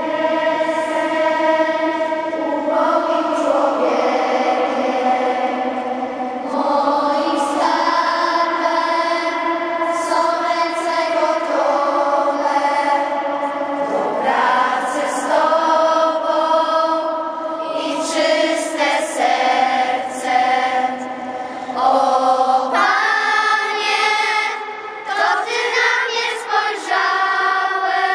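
A young choir of children and teenagers singing together, holding long notes that change every second or two.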